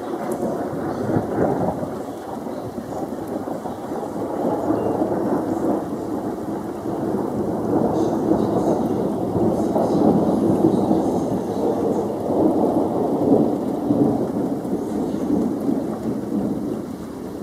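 Long, continuous rolling thunder, swelling louder in the middle and easing off near the end.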